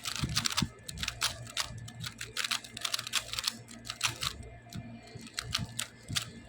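Plastic speed cube being turned by hand: a quick, irregular run of clicking and clacking as the layers are twisted, with a dense flurry of clicks around the middle.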